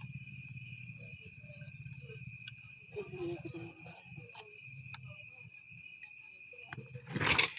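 Crickets chirping steadily in the night, a continuous high trill. A short, louder burst of handling noise comes near the end.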